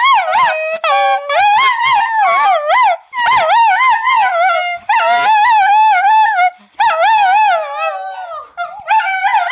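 Small dog howling in long, high, wavering notes, several in a row with short breaks between them, like singing; the howls grow softer near the end.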